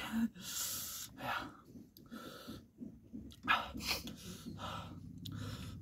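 A man panting and drawing sharp, hissing breaths through the mouth, a string of breathy puffs, reacting to the burn of very spicy noodles.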